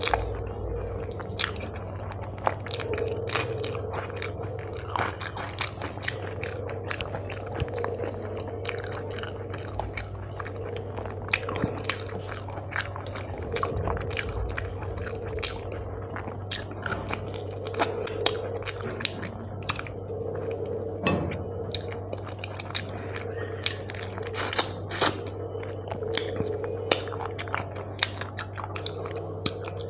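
Close-miked chewing and mouth sounds of someone eating rice mixed with fish curry by hand, with frequent short wet clicks and smacks. A steady low hum runs underneath.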